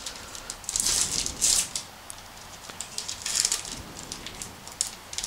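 A trading-card pack's plastic-foil wrapper crinkling and tearing as it is peeled open, in a few short crackly bursts, the loudest about a second in and again around three seconds in.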